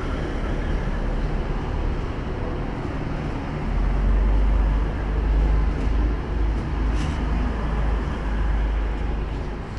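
A train passing close by: steady rumble and rail noise, with the low rumble growing heavier from about three and a half seconds in.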